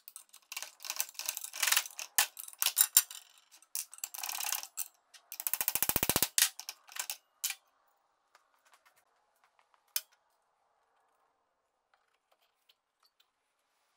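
Metal scraping, clanking and knocking as a small drive wheel is pried off the shaft of a Craftsman shaper motor with a long screwdriver, including a fast rattle lasting about a second around six seconds in. One sharp click follows a few seconds later.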